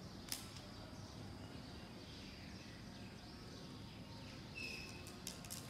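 Faint outdoor background noise with a single click just after the start and a short, distant bird chirp about four and a half seconds in.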